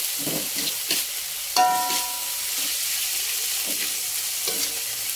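Shredded cabbage sizzling in oil in a wok while a metal spatula stirs and scrapes it, with one short ringing clank of the spatula against the wok about a second and a half in.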